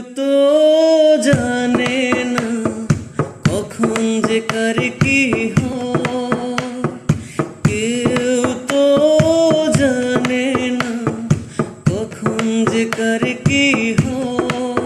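Instrumental introduction of a Bengali song: a pitched melody line, joined about a second in by a steady drum beat.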